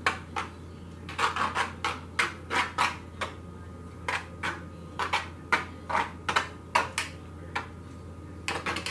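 The end of an egg beater tapping and scraping against the cookie sheet through a layer of shaving cream as dye is swirled into it: light, irregular clicks, two or three a second, over a low steady hum.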